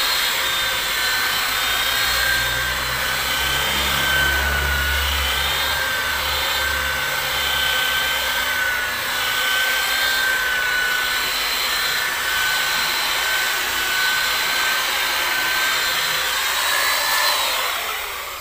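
Handheld electric rotary polisher running steadily with a high motor whine as its buffing pad works the paint of a pickup's body panel. The whine wavers slightly as the pad is pressed and moved, then begins to wind down at the very end.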